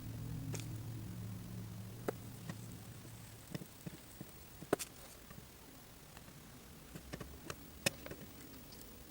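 Faint, scattered sharp clicks and taps of hand tools on a circuit board during solder touch-up work. Under them is a low hum that fades out about three seconds in.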